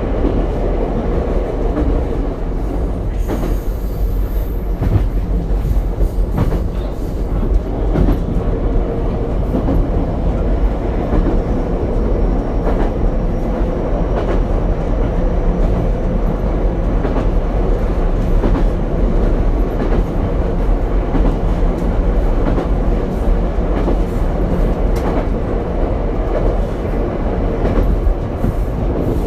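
Ichibata Electric Railway 7000-series car 7001 running at speed, heard from inside the car: a steady rolling rumble with clacks from rail joints at irregular intervals.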